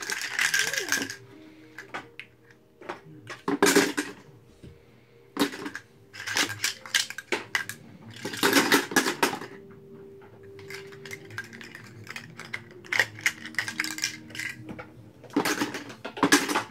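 Metal baby food jar lids clattering and clinking as they are dropped by the handful into a cardboard oatmeal canister, in short rattling bursts every second or two.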